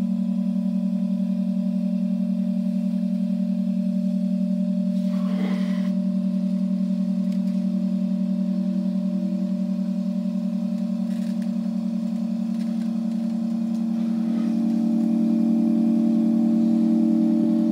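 Pipe organ sounding sustained notes with a regular waver; a higher note joins about five seconds in, and the sound swells louder about fourteen seconds in.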